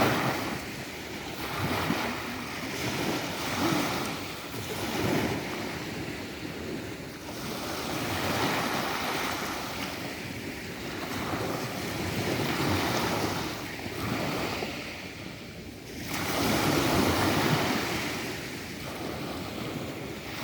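Black Sea surf: waves breaking and washing onto the shore, the sound swelling and ebbing every few seconds.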